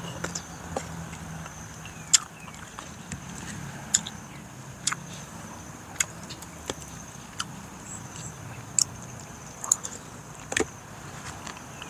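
Eating sounds: a metal spoon scraping and tapping in a banana-leaf parcel of steamed anchovies, with chewing and lip smacks, heard as irregular sharp clicks.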